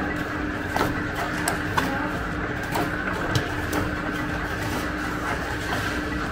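Electric dough mixer running steadily, its hook kneading a stiff, lumpy biga dough in a metal bowl, with irregular knocks and slaps as the dough is thrown against the bowl.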